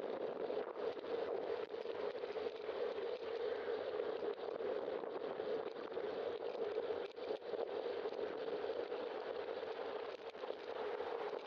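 Steady rushing wind and road noise on a bicycle-mounted camera's microphone while riding, with faint clicks scattered throughout.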